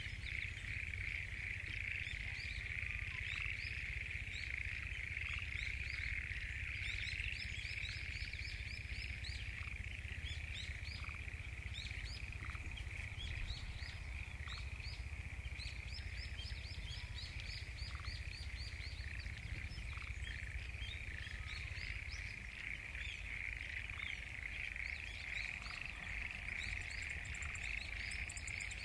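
Dense, steady chorus of many frogs calling from flooded rice paddies, which the recordist takes to be mostly black-spotted pond frogs (tonosama-gaeru), perhaps with other species, and short bird chirps above it.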